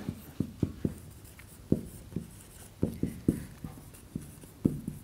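Felt-tip marker writing on a whiteboard: an irregular run of short strokes and taps as letters are written.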